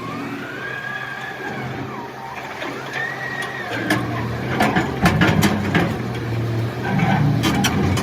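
Heavy diesel engine running, with a whine that rises and falls twice, then a run of sharp knocks and clatters in the second half.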